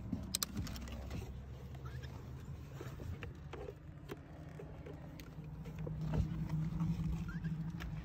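A plastic pet carrier being handled, with light clicks and rattles, over a low rumble that swells near the end. A few faint short chirps come from the small bird inside.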